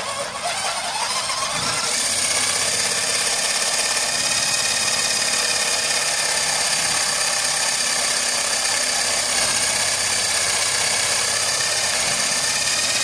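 Cordless drill turning a 20 mm spade bit as it bores into a wooden board. The motor whine rises in pitch over the first couple of seconds, then runs steady.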